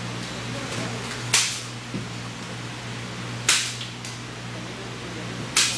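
Three sharp cracks about two seconds apart, each with a short hissing tail, from tool work on a travel trailer's roof, over a steady low hum.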